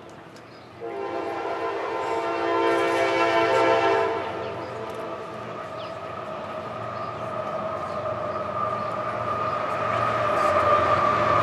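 A horn sounding: a multi-note chord from about a second in that fades near four seconds, then a long steady tone that swells louder toward the end.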